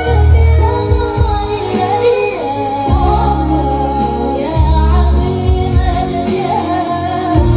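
A woman singing a flowing melody over instrumental backing with deep, sustained bass notes.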